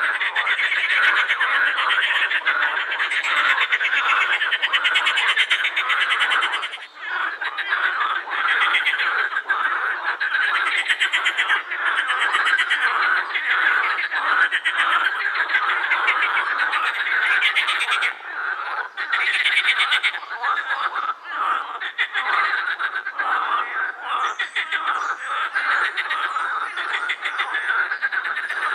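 A chorus of many edible frogs calling at once: a dense, continuous mass of fast-pulsed croaking, with short lulls about seven seconds in and again around eighteen seconds.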